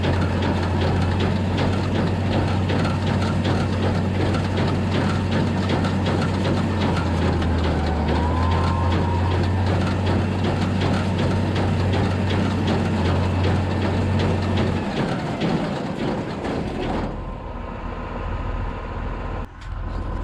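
A tractor engine runs steadily while a hay baler works, making a dense, fast mechanical clatter. About 15 seconds in, the engine note drops. Shortly after, the clatter dies away, leaving a lower, quieter engine running.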